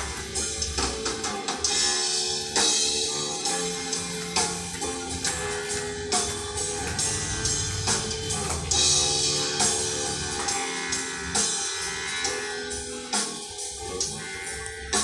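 Instrumental rock passage with drum kit and guitars playing, no singing.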